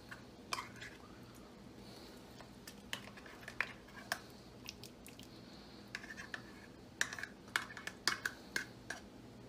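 A utensil stirring inside a Crofton 6-quart enameled cast iron Dutch oven, knocking and scraping against the enameled sides and bottom in irregular clicks that come thicker near the end.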